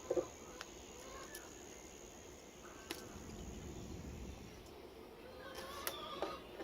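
Faint scattered clicks and knocks of cable being handled and worked in a small manual wire-stripping machine. A faint steady high whine runs underneath and stops about two-thirds of the way through.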